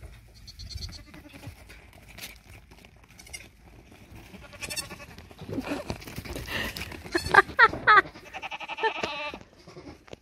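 Goats bleating several times in the second half, with loud quavering calls.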